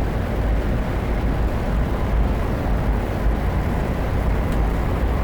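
Cabin noise inside a 500 series Shinkansen car while the train runs: a steady deep rumble with a faint steady whine above it.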